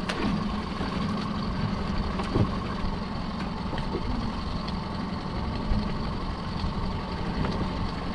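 Small boat's outboard motor idling steadily, with a few short knocks as the wire crab pot is handled on the gunwale.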